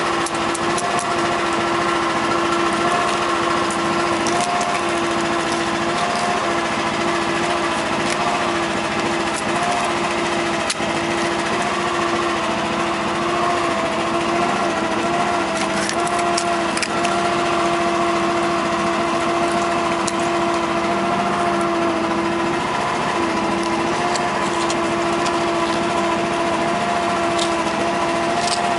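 Lobster boat's engine running steadily, a constant droning hum with a whine that holds the same pitch throughout.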